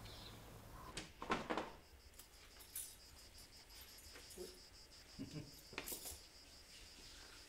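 Crickets trilling steadily in a high, even tone, joined by a few soft knocks and rustles of movement; a louder bump comes about a second in.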